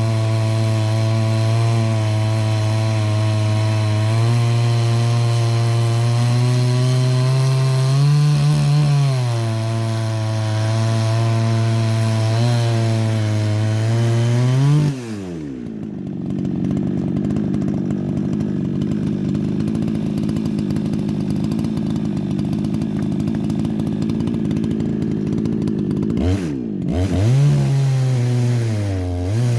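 Chainsaw with a 36-inch Husqvarna C85 chain reground into a milling (ripping) chain, its rakers lowered and cutters filed to 90°, running at high revs under load as it rips through wood. About halfway through the revs drop off to a lower, rougher running. Near the end the engine is revved back up twice in quick rising sweeps.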